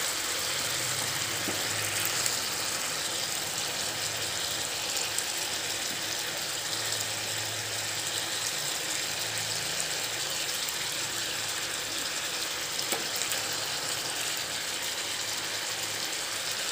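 Squid masala with freshly added chopped onions sizzling steadily in a frying pan.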